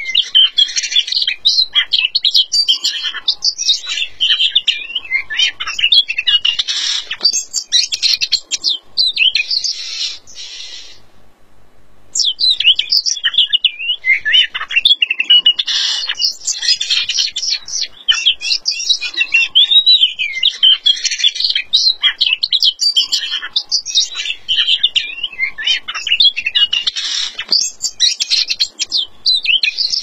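Oriental magpie-robin in full song: a dense, varied stream of whistles, trills and chirps. It breaks off for about a second and a half near the middle, then resumes.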